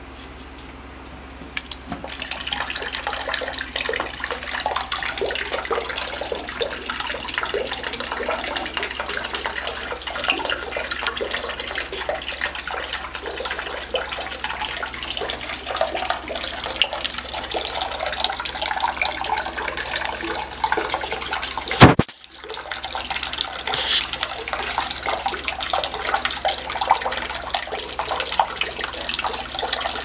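Water from a small concrete Moai-head tabletop fountain pours in a stream from the figure's mouth into its basin: a steady splashing that starts suddenly about two seconds in. A sharp click about two-thirds of the way through briefly breaks it off, then the splashing resumes. A low steady hum runs underneath.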